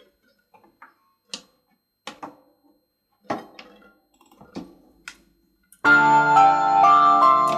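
A few scattered light clicks and knocks, then about six seconds in a backing track starts loudly with sustained electronic keyboard chords.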